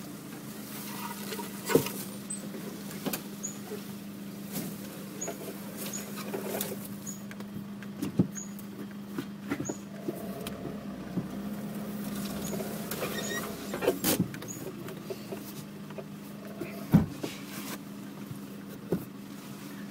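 Nissan Navara's engine running steadily at low speed, heard from inside the cab as the truck crawls along a rough bush track, with a few sharp knocks and rattles from the body and suspension over bumps.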